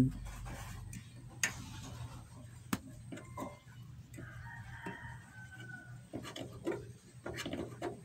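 Quiet workbench sounds over a steady low hum: a few light clicks and rubs as multimeter probes are handled and touched to a microwave high-voltage capacitor's metal terminals during a ground test.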